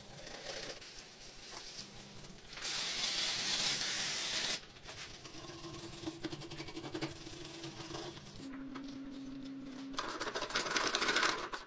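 A brush scrubbing a foam-covered mini dirt bike carburettor, with a loud hiss lasting about two seconds a few seconds in and a steady low hum in the middle. A louder rasping burst comes near the end.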